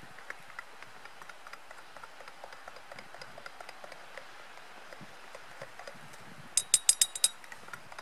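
Metal spoon stirring coffee in a metal camping cup, with light scraping ticks, then a quick run of about seven ringing clinks against the cup wall near the end.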